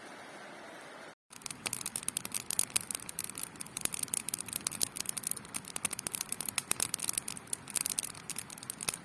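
Campfire with a camp pot of water on it coming to the boil: dense, irregular crackling and popping that starts about a second in.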